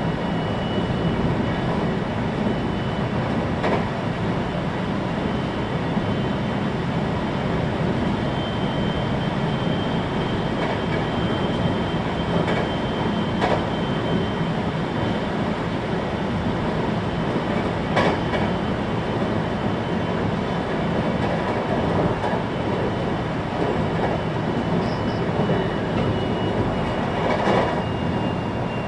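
Ainokaze Toyama Railway 521-series electric multiple unit running at speed, heard from inside the passenger car: a steady rumble of wheels on rail with a faint steady high whine, and a few sharp clacks over rail joints.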